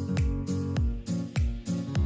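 Background music with a steady beat: a deep kick drum about every 0.6 seconds, with crisp percussion hits over held notes.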